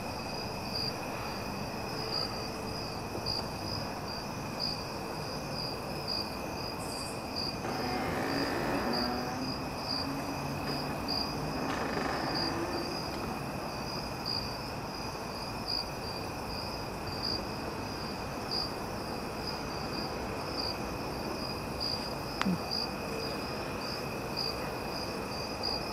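A chorus of night-singing insects: a steady high shrill pulsing about twice a second over a lower continuous drone, without a break. Partway through, a faint low hum rises slowly in pitch and fades.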